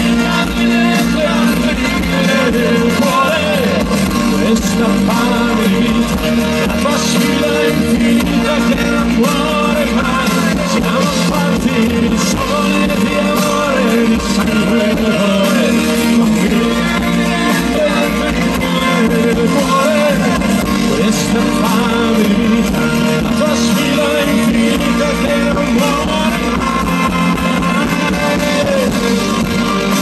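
Rock band playing live on electric guitars, bass, drums and keyboards, in a long stretch without sung words.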